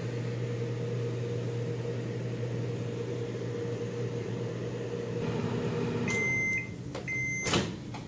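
Microwave oven running with a steady low hum that stops about six seconds in. Two short beeps then signal the end of the heating cycle, followed by a sharp click as the door is opened.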